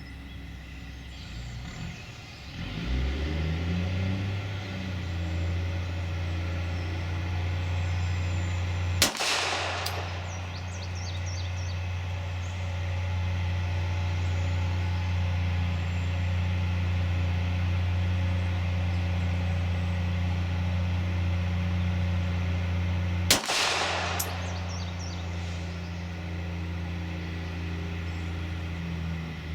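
Two single 9mm pistol shots from a Glock 26, about fourteen seconds apart. Under them runs a steady low engine drone, which comes in a couple of seconds in with a short rise in pitch.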